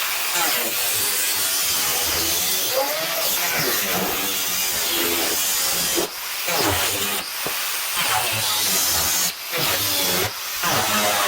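Power tool cutting through the sheet-metal skin of a car bonnet, a continuous harsh whine whose pitch wavers under load, easing off briefly about six and nine seconds in.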